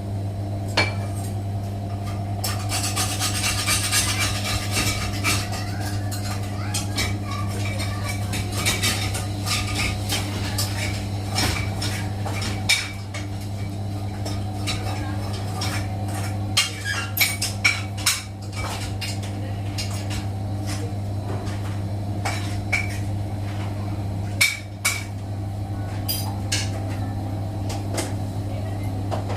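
Steady low hum of a Siemens iQ700 washing machine running after a drum replacement, with scattered sharp metallic clinks and taps, several bunched together around the middle and again later on.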